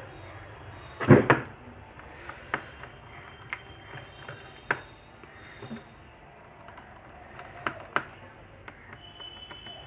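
Scattered light clicks and taps of a smartphone being taken apart by hand with small tools, the loudest a sharp double tap about a second in.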